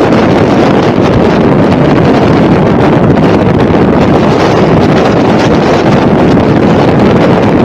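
Loud, steady wind buffeting the microphone of a camera on a moving motorcycle, a dense rumbling rush with no separate engine note standing out.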